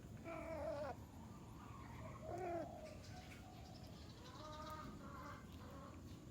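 Exotic Longhair cat meowing: two short calls that fall in pitch at the end, about half a second and two and a half seconds in, followed by fainter calls.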